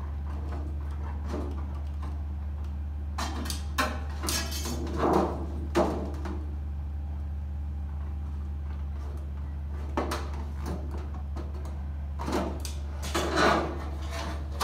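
Aluminium trim coil sheet rattling and flexing as it is bent and handled on a portable sheet-metal brake, in two bouts of clattering, over a steady low hum.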